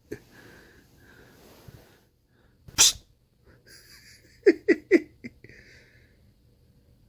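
A person gives one short, loud, sharp "shh!" a little under three seconds in, meant to startle a jumpy cat. About two seconds later come four quick, short vocal sounds in a row.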